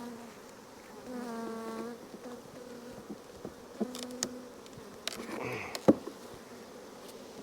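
Honeybees buzzing as they fly past in several passes, a steady droning hum that swells and fades. A few short knocks and clicks from handling in the middle of the stretch, the sharpest about six seconds in.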